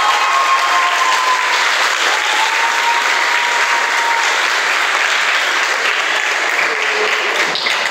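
Audience applauding steadily with many hands clapping, echoing in a tiled hall. A couple of long held notes stand out over the clapping in the first half.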